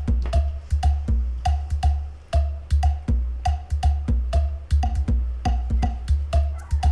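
Background music with a steady beat: short sharp clicks repeating several times a second over low bass notes, with a short pitched note recurring in the pattern.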